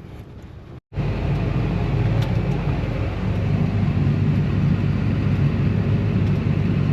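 Heavy vehicle engine running steadily with a loud, low rumble, which starts abruptly after a short break about a second in; before the break a quieter engine hum.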